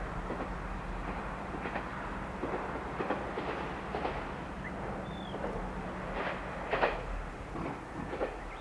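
Diesel train running past on the line: a steady low hum of the running train with irregular clacks of the wheels on the track.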